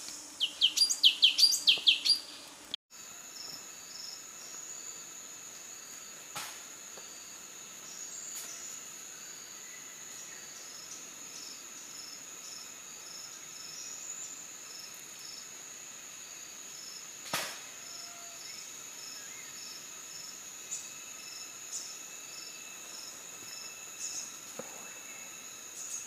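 A songbird sings a fast run of loud, high notes for about three seconds. The sound then cuts to a steady high-pitched insect drone with a soft, regular pulsing and a couple of faint clicks.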